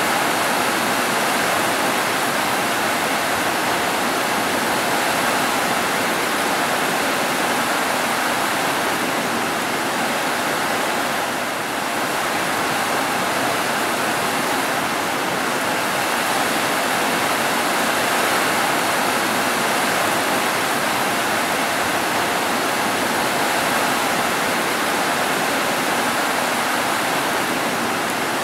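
Heavy rain pouring steadily on roofs, a dense, even rush of water noise with no thunder.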